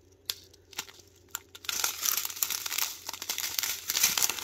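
Small clear plastic zip-top bags of diamond painting rhinestones crinkling as they are handled. A few separate clicks at first, then steady crinkling from about two seconds in.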